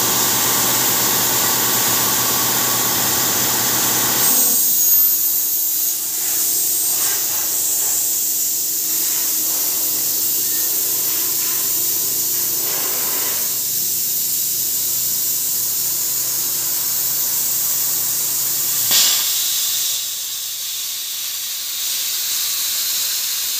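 CNC plasma torch cutting steel plate: a steady hiss of the arc and compressed air. For about the first four seconds a hum with several steady tones lies under the hiss, then the sound becomes a higher, thinner hiss, with one sharp click late on.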